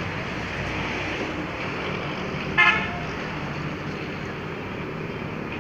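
A vehicle horn gives one short toot about two and a half seconds in, over steady background traffic noise.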